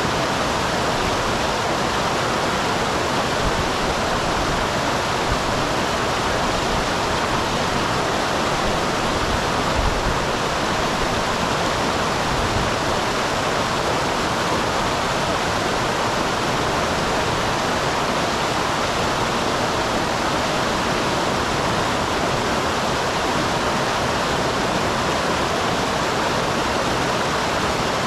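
Small waterfall on a mountain stream: water pouring steadily over rocks in an even, unbroken rush.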